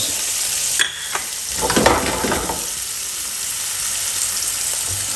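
Flathead fillets frying in a mix of butter and oil in a frying pan: a steady sizzling hiss, with a louder flurry of crackling about two seconds in.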